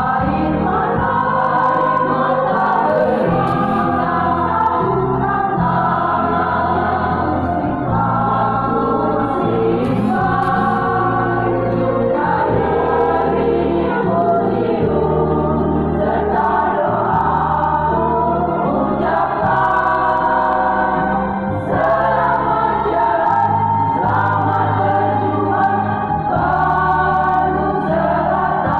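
Women's choir singing in parts, with a low accompaniment that holds each chord for a couple of seconds.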